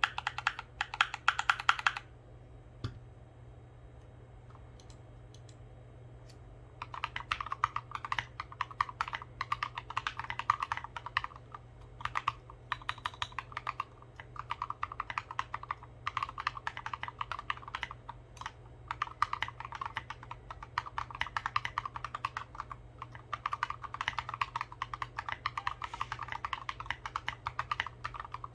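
Typing on a Discipline mechanical keyboard with foam inside, lubed Gateron Merlot tactile switches, lubed stabilisers and SA-profile keycaps. A quick flurry of keystrokes is followed by a pause of a few seconds, then steady, rapid typing from about seven seconds in. A low steady hum runs underneath.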